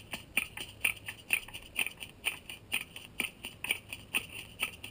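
Hand percussion keeping a steady beat: sharp dry clicks, about four a second, alternating strong and weak strokes.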